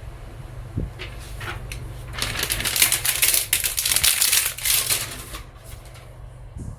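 Crinkling and crackling of plastic film or packaging being handled, for about three seconds from around two seconds in, over a steady low hum.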